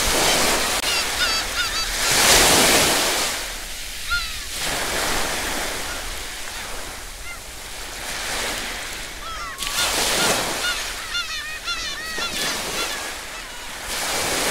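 Sea waves breaking and washing over a rocky shore, surging loudest about two seconds in and again near ten and fourteen seconds. Short, wavering high calls of birds sound in between.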